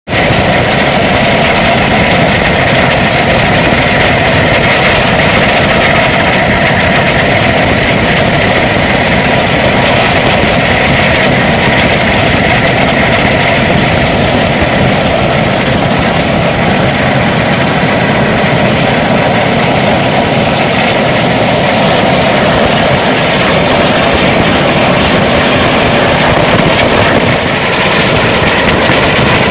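Loud, steady engine and airflow noise of an aircraft in flight, heard from on board.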